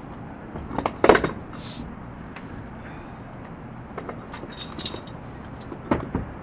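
Scattered clattering knocks and scrapes from handling firing wire on a corrugated metal roof, the loudest cluster about a second in and another near the end, over a steady background hiss.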